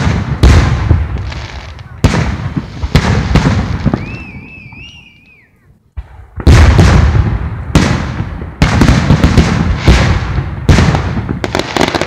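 Aerial fireworks shells bursting with loud booms over the first few seconds. A lull follows, with a high wavering whistle between about four and six seconds in. From about six and a half seconds on comes a rapid barrage of bangs.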